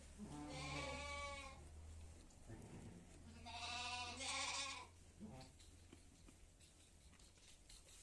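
Bleating from a penned flock of sheep and goats: two long, wavering bleats about three seconds apart, then a brief third call.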